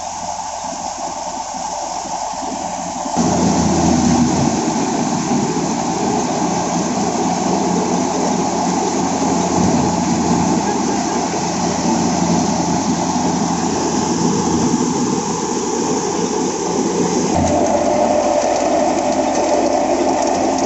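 Tractor engine and wheat thresher running steadily: a dense, even mechanical noise over a low engine hum. The sound steps up abruptly about three seconds in and shifts again near the end.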